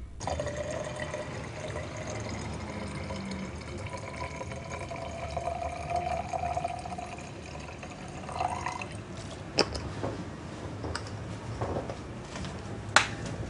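Liquid running into a glass jar for about eight seconds, a faint tone in it rising slightly as the jar fills. Then come a few sharp taps, the loudest near the end.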